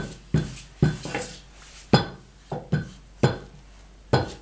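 A series of sharp knocks on the table, roughly two a second and unevenly spaced, each with a short ring, as puff pastry dough is pressed and handled with a wooden rolling pin.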